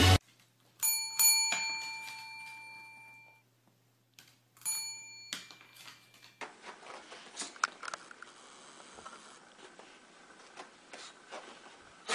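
Two bell-like chime strikes about half a second apart, each ringing and fading over a couple of seconds, then a third, shorter strike. After that comes a low scratchy rustle with scattered light taps.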